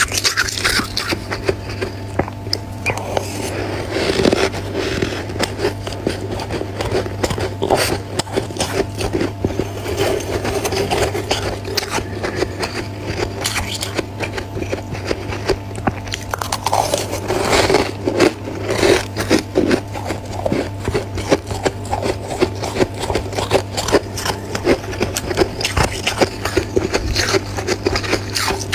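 Frost being scraped off the inside of a freezer: a continuous, dense crackling scrape, over a steady low hum.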